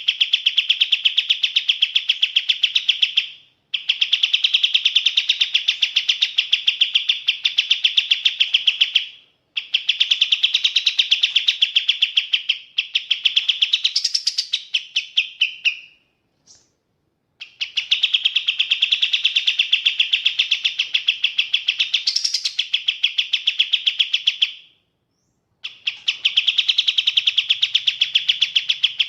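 Kapas tembak songbird singing: long runs of rapid, high chirping notes, each several seconds long, broken by short pauses, about five runs in all.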